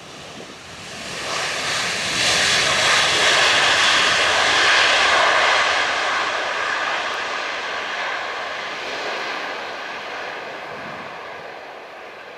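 Airbus A330-300's twin GE CF6 turbofan engines on the landing roll after touchdown: a loud jet rush that swells over about a second, holds, then slowly fades, with a steady whine running through it.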